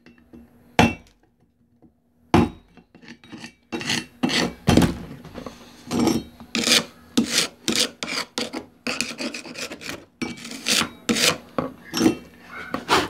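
Chipping hammer knocking and scraping slag off a fresh stick-electrode weld bead on thin steel sheet. Two separate taps, then from about four seconds in quick repeated blows, roughly two a second, with scraping between them.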